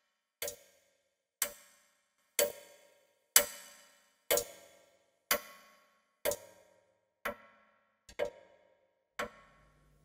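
A clock ticking about once a second, each sharp tick ringing briefly. The ticks swell louder over the first few seconds, then fade away toward the end.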